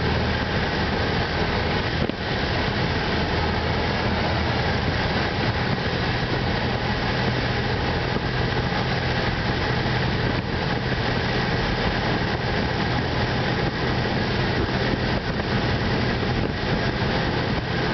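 Cessna 172's piston engine and propeller running steadily, heard from inside the cabin: a low, even drone under a dense rushing noise.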